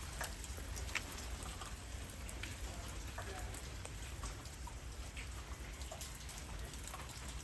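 Light drizzling rain falling steadily, with many individual drops landing as scattered, irregular ticks.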